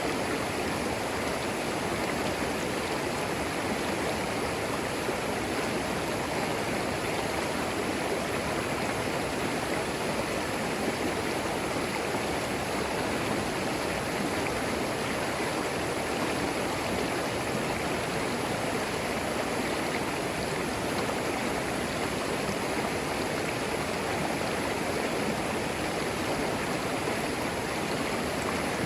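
A shallow creek flowing and babbling over stones, a steady, unbroken rush of water.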